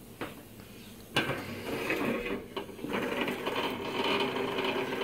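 A HEXBUG Transformers Bumblebee battling robot, switched on, buzzing and rattling on a hard plastic arena as its vibration motor drives it. The buzz starts with a click about a second in and then runs steadily.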